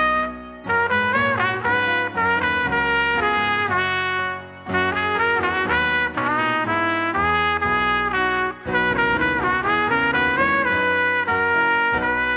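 Brass music led by trumpet, playing held notes in phrases with brief breaks between them.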